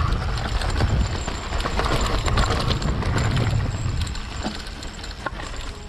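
Hardtail e-mountain bike rolling fast down a dirt forest trail: wind rushing over the microphone, tyre rumble and rattling clicks from the frame and chain. It eases off about four seconds in, leaving a few separate ticks.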